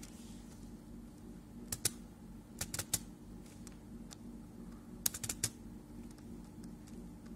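Computer keys clicking in three small clusters of two to four clicks each, over a low steady hum.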